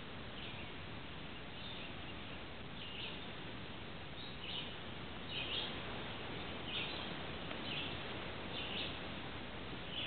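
Red-shouldered hawk nestlings calling: short, high calls repeated roughly once a second over a steady background hiss.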